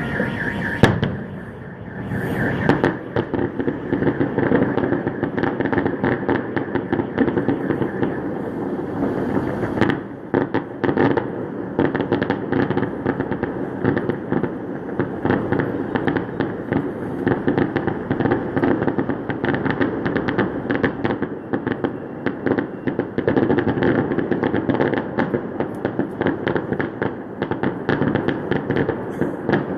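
Fireworks salute going off: a dense, continuous run of rapid bangs and crackles, with a brief lull about ten seconds in.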